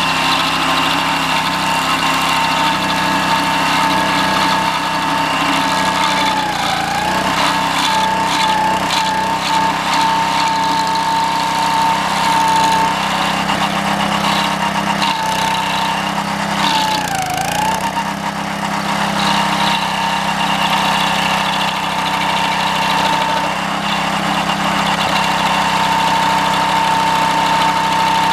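Homemade stump grinder's 6.5 hp Honda engine running at a steady high speed. Its pitch sags briefly twice, about six and seventeen seconds in, as the engine is loaded. Between those dips, the toothed cutting wheel clatters irregularly as it chips into green pine.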